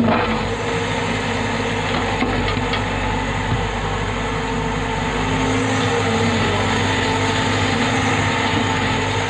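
Hyundai Robex 110-7 crawler excavator's diesel engine running steadily under digging load as it scoops broken rock and swings the bucket, with a few knocks of stone in the first couple of seconds.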